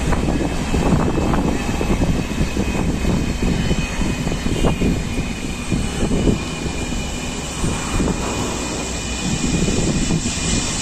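Antonov An-124's four D-18T turbofan engines running as the freighter rolls along the runway: a steady jet roar with a thin high whine over it.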